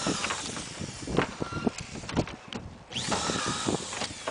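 Cordless drill driving screws through the hold-down clips of standing seam metal roof panels. The motor runs and stops about two and a half seconds in, then whines up again for a second run about three seconds in.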